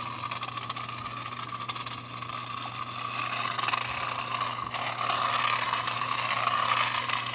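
Tyco Canned Heat toy RC car's small battery-powered electric motor whining, its pitch wavering up and down as the speed changes, with the light plastic car rattling as it hops over bumps.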